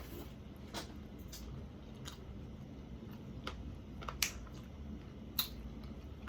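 Close-miked chewing of hot wings: soft wet mouth sounds with about six sharp lip-smack clicks, the loudest a little after four seconds and around five and a half.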